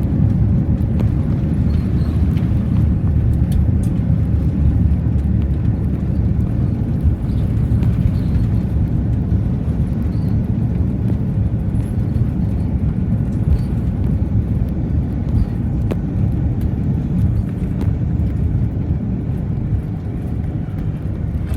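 Steady low rumble inside the cabin of an Airbus A330-300 airliner taxiing after landing, easing slightly towards the end.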